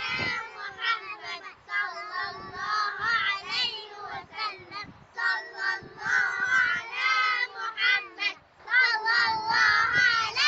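Children's high voices singing, wavering in pitch, with short breaks between phrases.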